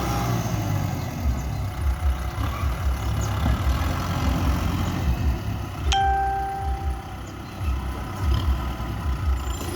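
Tractor engine running with a steady low, pulsing rumble. About six seconds in, a single ringing tone sounds and fades over about a second.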